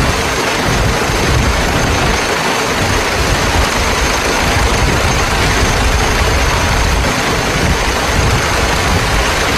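Open veteran car driving along at speed: a steady rush of wind and road noise with a heavy low rumble from the running car.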